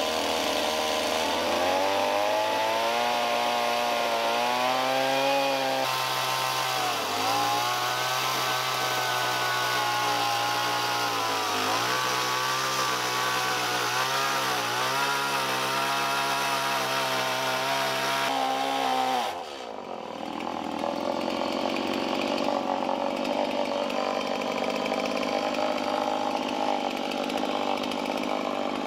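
Gas chainsaw cutting through a log, its engine note dipping several times as the chain bites. About two-thirds of the way in the sound drops suddenly and comes back rougher, the saw still running and cutting.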